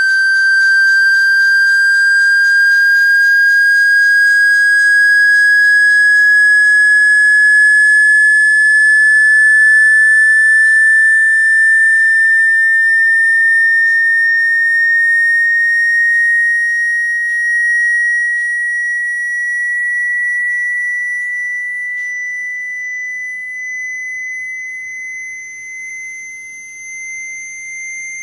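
A single pure electronic tone, a speaker water-ejection tone meant to shake water out of a phone speaker, gliding slowly and steadily upward in pitch as a high whistle. It grows somewhat quieter over the last dozen seconds.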